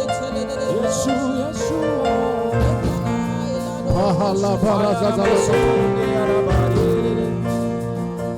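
Soft worship music with sustained held chords, and a voice singing over it from about four seconds in.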